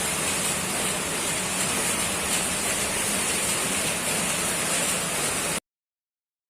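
Ducted mini-split air conditioner's blower fan running, a steady rush of air with a faint low hum, cutting off suddenly about five and a half seconds in.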